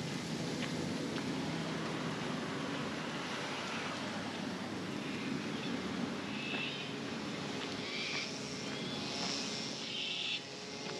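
Steady rumble of road traffic, with bird calls over it in the second half.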